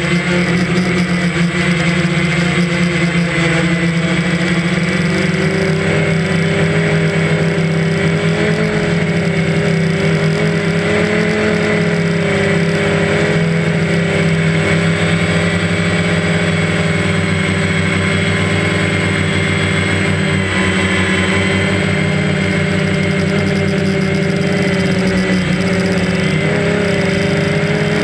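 DJI Phantom quadcopter's electric motors and propellers running in flight, picked up by the camera on board: a loud, steady, whining buzz whose pitch wavers slightly as the motors change speed.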